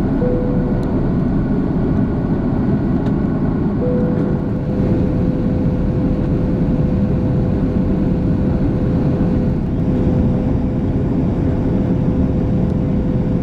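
Steady roar inside the cabin of a four-engine Airbus A340-600 in flight: engine and airflow noise. A steady mid-pitched whine sounds briefly at the start, stops, and comes back about four seconds in.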